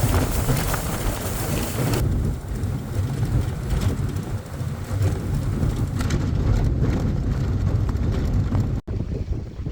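Motorboat under way, a steady low rumble of the motor and hull on the water with heavy wind buffeting the microphone. The sound breaks off for an instant just before the end.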